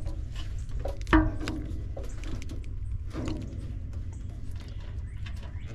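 Clicks and knocks of a screwdriver and wire connectors being worked onto a compressor's terminals, the loudest knock about a second in and another about three seconds in, over a steady low rumble.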